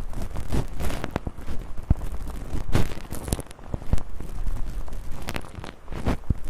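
ASMR ear-cleaning-style sounds made close to the microphone: irregular fizzing, crackling scrapes and rubs, several stronger strokes standing out.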